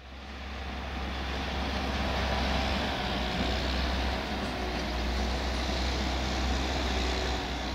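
Steady low engine rumble with an even hiss over it, fading up from silence at the very start.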